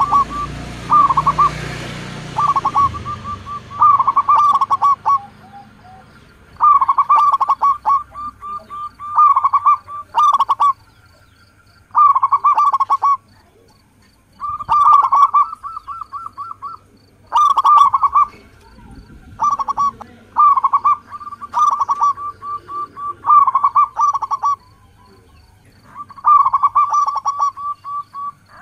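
Zebra dove (perkutut) cooing: short phrases of rapid staccato coos, repeated one after another with brief pauses between them.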